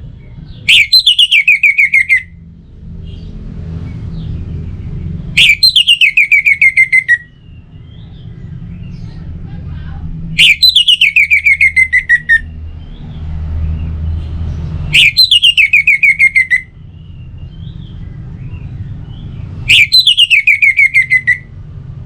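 Orange-headed thrush call: a rapid run of notes falling in pitch, repeated five times about every five seconds in identical copies, as a looped lure recording. A low rumble runs underneath.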